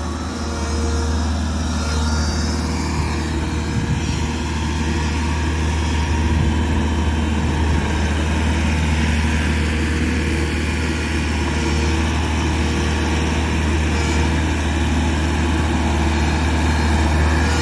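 A 2016 Bobcat Toolcat 5600's diesel engine running steadily, a low even drone that gets a little louder about a second in.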